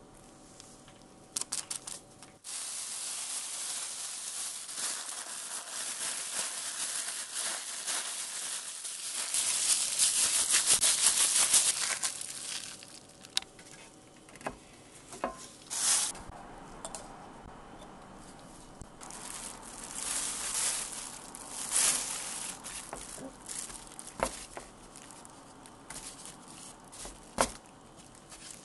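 Thin plastic bag crinkling and rustling as raw game meat is worked with seasoning inside it, loudest near the middle. Later come quieter rustles and a few sharp taps as the meat pieces are coated in starch in a metal tray.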